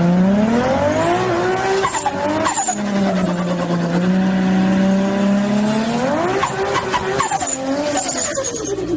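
Turbocharged car engine revving hard: its pitch climbs, drops back and holds steady, then climbs again and falls away near the end. A high turbo whistle and short fluttering chirps come each time the revs drop, about two seconds in and again near seven seconds.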